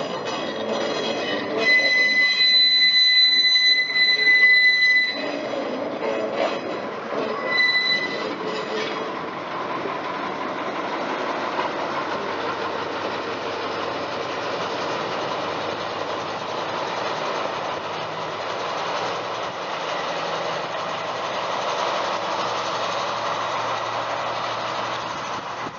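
Railway wheels squealing on the rails in several high-pitched spells over the first eight seconds as a caboose and a British Rail class 03 diesel shunter roll past. After that comes the steady, even running noise of the train moving off along the track.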